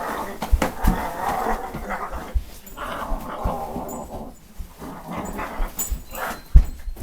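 Growling in two long rough spells, then shorter snatches, with scattered knocks and thumps; the loudest thump comes near the end.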